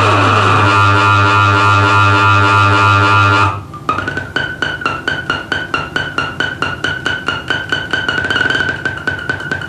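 Electronic noise from a synthesizer run through a Sherman Filterbank: a loud held drone with a pitch sweep falling in the first half-second, which cuts off suddenly about three and a half seconds in and gives way to a fast, even pulsing rhythm with a steady high whine on top.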